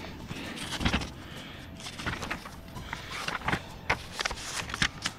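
Pages of a paper owner's manual being leafed through: a handful of short, irregular rustles and flicks.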